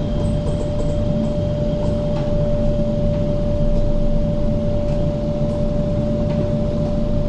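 MTR K-stock electric train running, heard from inside the passenger car: a steady low rumble of wheels on the track with a constant hum over it.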